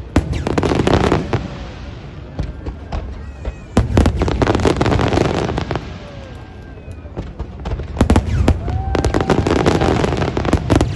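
Fireworks display: volleys of aerial shell bursts, sharp bangs and crackling over a low rumble, coming in three dense bursts near the start, around the middle and near the end.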